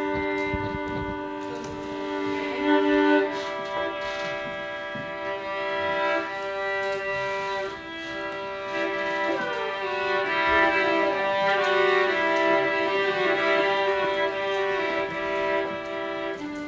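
Instrumental music: a chord of held notes comes in suddenly and sustains, with some pitches sliding downward over it about halfway through.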